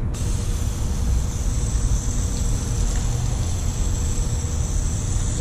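Rinse water from a hose running in a steady stream over a car's coated paint to sheet it off, a steady hiss that starts abruptly.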